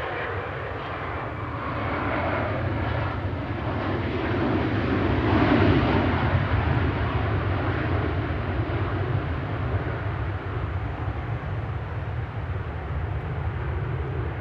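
Boeing 737-800's CFM56 jet engines in reverse thrust on the landing rollout. The engine noise swells to its loudest about five or six seconds in, then slowly eases as the aircraft slows.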